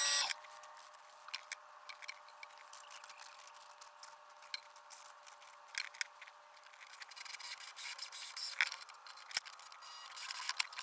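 Bench drill press motor running and cutting off just after the start. It is followed by light clicks, taps and rubbing as small threaded metal rods and fittings are handled on the steel drill-press table, and the scraping and rubbing grow denser near the end.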